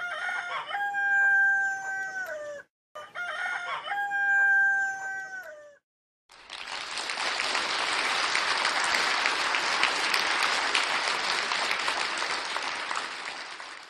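A rooster crowing twice, the same long crow each time, its pitch held and then dropping off at the end. From about six seconds in, a crowd applauds with a dense patter of clapping until the end.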